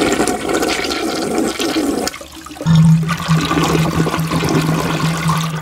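Toilet flushing, with water rushing. After a brief dip about two seconds in, a steady low hum joins the water.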